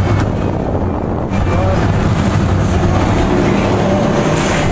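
Sportfishing boat's engines running at a steady low drone, with wind buffeting the microphone.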